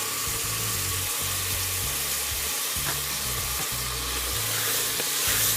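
Potatoes, black-eyed peas and bamboo shoots sizzling as they fry in hot oil in a pressure cooker, with a few stirring scrapes near the end.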